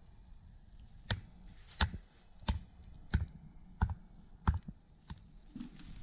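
A hatchet knocking a wooden stake into the ground: seven sharp, evenly spaced blows about two-thirds of a second apart.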